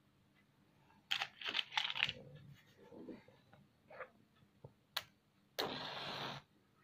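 Hands handling a metal bottle, with clicks and rustles, then a sharp click. Near the end comes a short hiss lasting under a second as a bright flash flares at the bottle's base.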